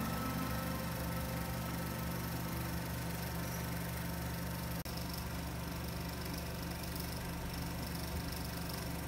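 Steady low mechanical hum over a faint hiss, dropping out suddenly for an instant just under five seconds in.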